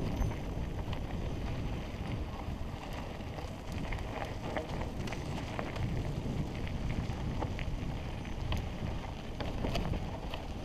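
Wind buffeting a helmet-mounted camera over the rumble of mountain-bike tyres rolling fast on a dirt singletrack, with scattered sharp clicks and rattles from the bike over the rough ground.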